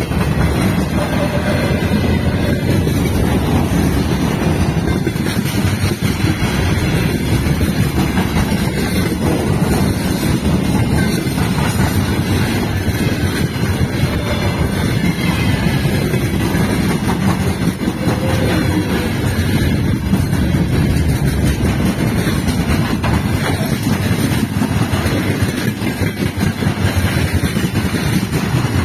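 Open-top gondola wagons of a freight train rolling past at speed close by: a loud, steady noise of wheels running on the rails.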